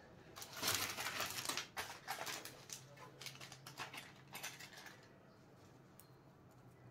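Power-supply cables being bundled and tied off with a wire twist tie: irregular rustling and light clicks of cable and tie being handled, which stop about five seconds in, over a faint steady hum.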